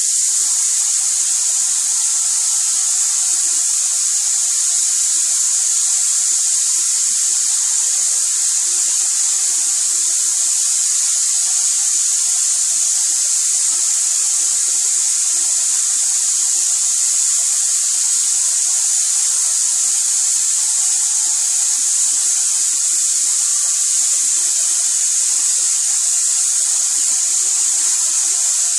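Airless paint spray gun spraying paint onto a wall: a loud, steady high hiss from the spray tip, held without a break.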